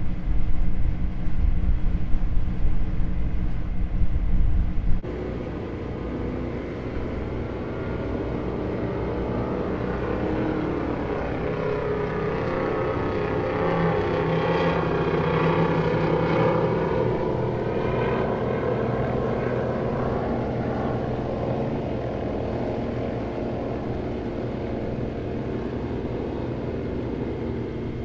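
A heavy low rumble that cuts off suddenly about five seconds in. Then a steady motorboat engine drone that swells to its loudest around the middle and slowly fades, as a boat passes on the water.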